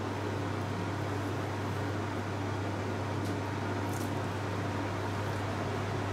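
Steady electric fan hum with a strong low mains-like drone, typical of a running kitchen appliance. Near the middle come a couple of faint scratches as cooking twine is pulled tight around a rolled roast.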